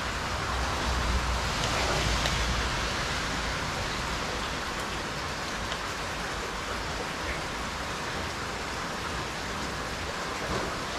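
Steady rain, a continuous even hiss, with a low rumble in the first couple of seconds.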